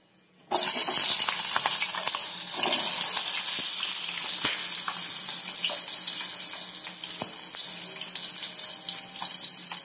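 Chopped onions dropped into hot oil in a frying pan, sizzling steadily from about half a second in, with scattered crackles.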